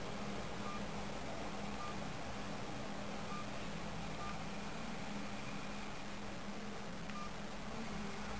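Short keypad beeps from a CECT E900 mobile phone as its keys and navigation pad are pressed, about five single-pitch blips at irregular gaps, over a steady hiss and low hum.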